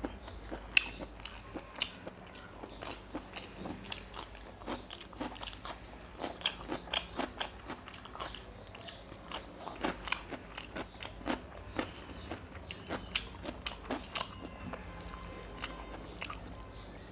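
Close-miked chewing and mouth sounds of a man eating mutton liver curry and rice by hand: a quick run of sharp wet smacks and clicks, several a second, the loudest just under a second in.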